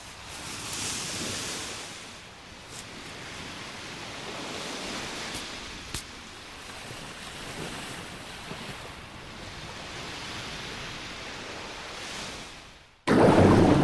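Sea waves washing on a beach: a soft surf hiss that swells and ebbs slowly. Near the end, loud music starts suddenly.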